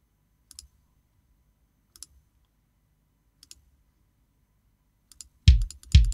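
A few faint mouse clicks, then near the end quick hits of a sampled mahogany bass drum struck with a wood beater: a deep thud with a sharp, clicky attack.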